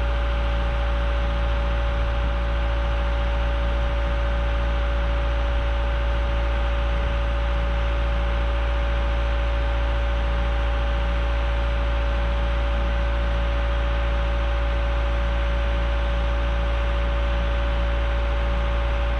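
An engine idling steadily: a constant low drone with a steady higher-pitched tone over it, no revving.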